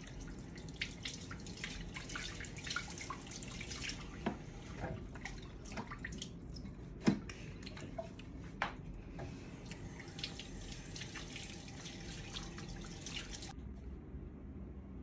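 Water running from a touchless faucet into a sink while hands are washed under it, with splashing and dripping, and one sharp knock about seven seconds in. The water sound cuts off shortly before the end.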